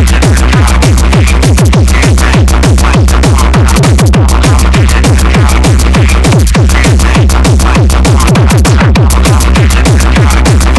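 Loud techno music from a DJ set, with a steady pounding kick drum and heavy bass.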